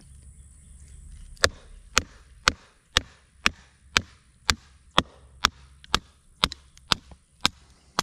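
Wooden baton striking the spine of a knock-off Ka-Bar fighting knife again and again, driving the blade down through a piece of oak to split it. Sharp knocks about two a second, starting a second and a half in.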